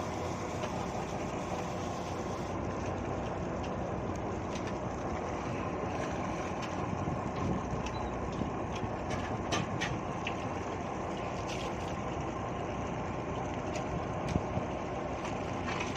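Fishing boat's engine running steadily, a constant drone, with a few short knocks about ten seconds in and again near the end.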